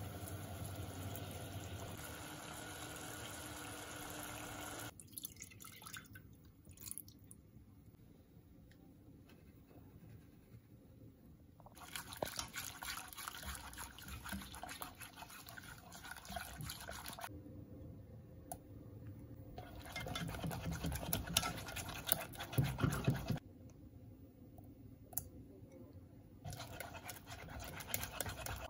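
A silicone balloon whisk beating milk and eggs in a saucepan, in several separate bouts of brushy, rhythmic scraping, loudest about twenty seconds in. It opens with about five seconds of steady hiss that cuts off suddenly.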